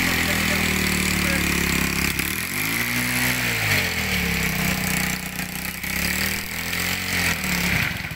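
Dirt bike engine running close by, revved up and falling back twice while the bike is worked up a muddy trail climb.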